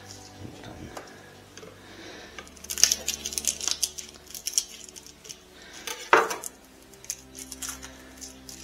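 Garlic cloves being broken apart and peeled by hand, the dry papery skins crackling in quick runs of small clicks, with one knock of the knife or clove on the cutting board near the middle.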